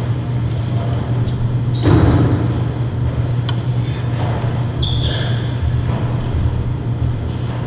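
Steady low rumble of room noise in a large church hall, with a thud about two seconds in and a few light clicks and knocks after it.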